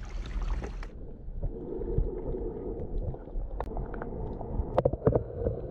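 Water and wind at a kayak's bow for about a second, then the sound turns suddenly muffled as the camera is underwater. What follows is a dull underwater wash of sea water, with a few sharp clicks and knocks near the end.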